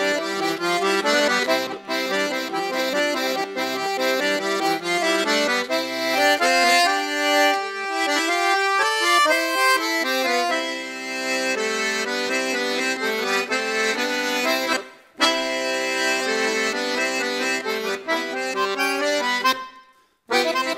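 Traditional accordion music, a lively tune over steady held bass notes. It breaks off briefly about fifteen seconds in, then stops near the end before another piece starts.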